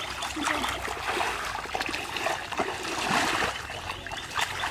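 Shallow muddy water sloshing and splashing as people wade in it and grope through it by hand.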